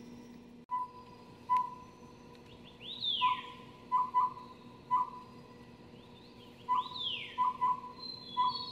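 Collared owlet song: short, evenly pitched whistled hoots in the species' four-note pattern (hoot, hoot-hoot, hoot), given twice after a couple of single hoots. Another bird gives two loud down-slurred whistles alongside.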